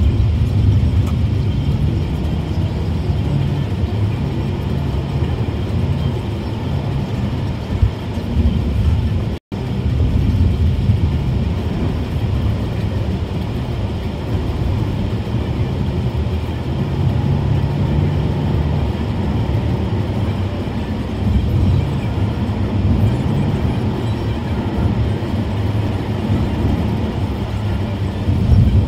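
Steady low rumble of a car's engine and tyres heard from inside the cabin while driving on a snow-covered road. The sound cuts out for an instant about nine and a half seconds in.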